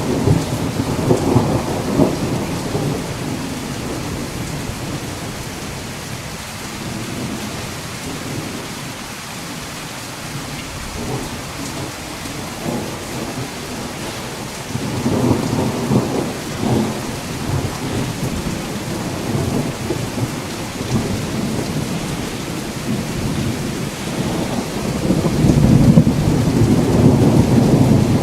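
Steady rain with rolling thunder: low rumbles swell at the start, again about halfway through, and loudest near the end.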